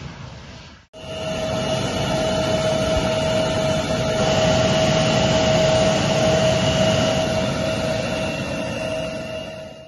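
Embraer E175 regional jet running at idle close by: a steady high whine over a low rumble. The sound drops out briefly about a second in.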